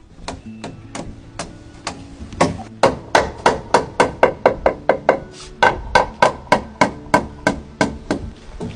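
Hammer striking wooden joists, a few scattered blows in the first two seconds, then a quick steady run of about three or four blows a second.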